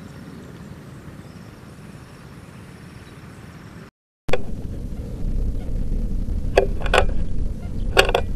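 Faint steady outdoor noise, then after a cut a louder low rumble with a few short sharp clicks about two to four seconds later.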